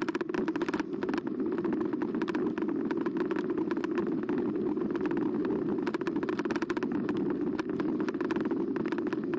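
Riding noise of a Carbo X eBike picked up by a bike-mounted camera: a steady low hum with many quick small clicks and rattles.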